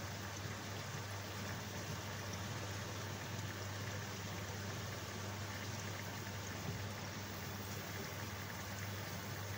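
Aquarium equipment running steadily: a constant low hum under an even, water-like hiss.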